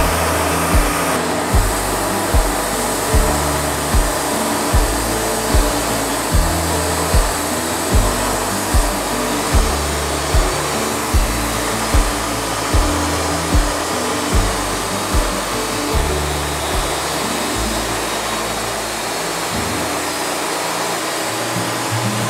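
Steady noise of a Wood-Mizer LT40 Wide band sawmill running, under background music with a steady beat of about five thumps every four seconds and a moving bass line. The beat stops about three-quarters of the way through, leaving the mill noise and low music.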